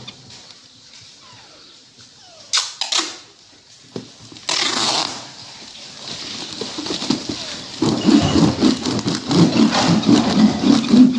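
Packing tape pulled off the roll and pressed onto a cardboard box: a few short rasps, then a longer, louder stretch of ripping in the last few seconds.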